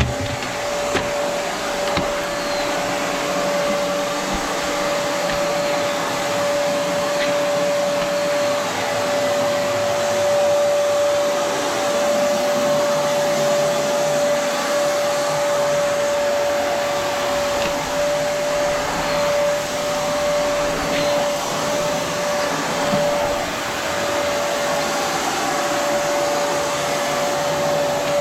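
Vacuum cleaner running steadily with a constant whine, its sound wavering slightly as it is pushed back and forth over carpet.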